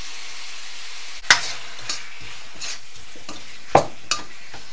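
Peppers and onions sizzling steadily in a hot oiled wok with oyster sauce just added, broken by a few sharp metal knocks, the loudest about a second in and near the end.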